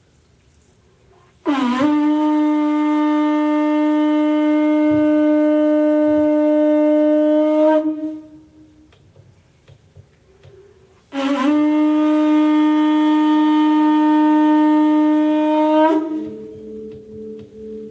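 A natural horn blown in two long, steady blasts of about six and five seconds, each beginning with a quick upward scoop in pitch. Near the end, struck bell-like tones begin to sound in a rhythm.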